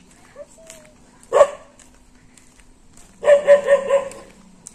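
Dogs barking: one bark about a second in, then a quick run of several barks about three seconds in.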